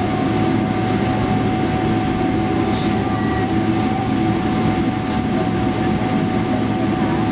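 Cabin noise of a Boeing 777-300 airliner rolling on the ground just after landing: a steady rumble of engines and wheels with a thin, constant whine.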